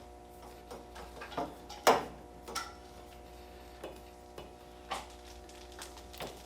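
Scattered light knocks and scrapes of Romex electrical cable being handled and pushed up through a hole drilled in the floor, the loudest knock about two seconds in, over a steady low hum.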